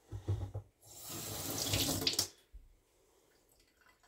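Kitchen tap turned on, water rushing into a stainless steel sink for about a second and a half, then shut off. A few soft knocks come just before.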